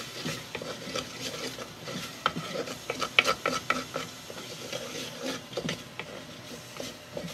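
A spoon stirring onion, garlic and colorau frying in a soapstone pot, with irregular clicks and scrapes against the pot over a faint sizzle.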